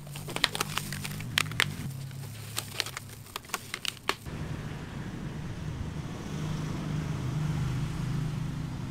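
Foil-faced foam insulation crinkling and crackling as it is handled around a bottle, a quick run of sharp crackles for about four seconds. It cuts off suddenly, leaving a steady low hum.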